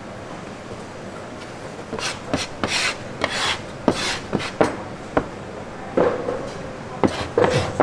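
Youtiao dough being worked by hand on a wooden board: short rubbing, scraping swishes mixed with sharp knocks, starting about two seconds in.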